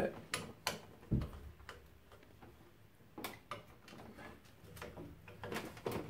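Hand tool tightening the heat exchanger screw inside a combi boiler: scattered sharp metal clicks and ticks, with a dull knock about a second in.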